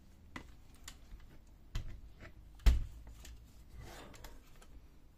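Hard plastic clicks and knocks as the side cover of an HP Color LaserJet CP3525 fuser unit is handled and fitted onto the fuser, with one louder knock about halfway through.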